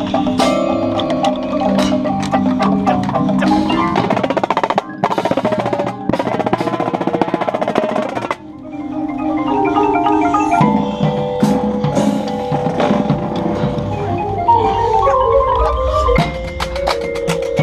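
Indoor drumline performing: front-ensemble marimbas and mallet keyboards with marching drums, including tenors. A dense run of rapid drum strokes gives way to a sudden drop about eight seconds in, after which the mallets carry a melody with quick climbing figures.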